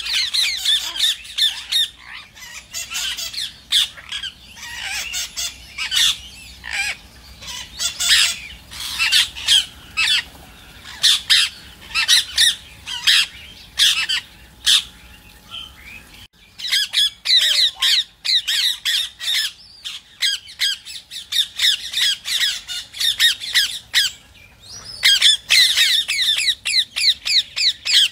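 Rose-ringed (ring-necked) parakeets squawking in rapid runs of short, shrill calls, several a second, with a brief break about sixteen seconds in.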